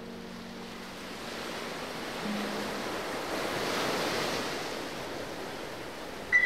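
A rushing hiss, like surf, from white fog billowing out of a container. It swells to its loudest about four seconds in, then fades. A few held notes of soft music die away in the first couple of seconds.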